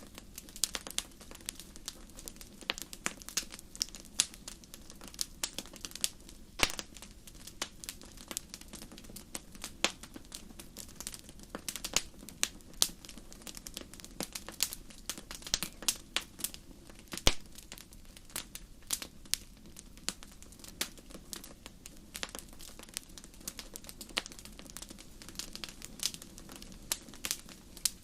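Wood fire crackling: irregular sharp pops and snaps, a few a second, over a steady low background.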